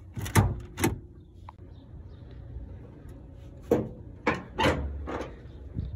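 Ford E250 van's hood release pulled with two sharp clunks, then a series of clunks and knocks as the hood is unlatched and lifted open.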